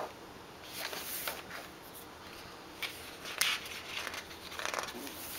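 Glossy magazine pages being turned and smoothed by hand: several short paper rustles and swishes, with a few light flicks of the pages.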